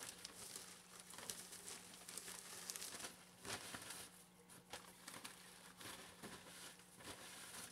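Plastic bag of aspen wood shavings crinkling as it is tipped and shaken, with shavings rustling as they pour out. The crackling is irregular and comes in a string of sharper crinkles.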